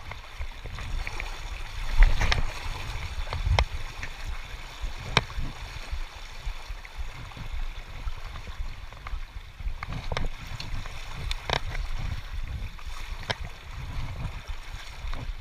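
Running creek water and low wind rumble on the microphone, with a few sharp clicks scattered through.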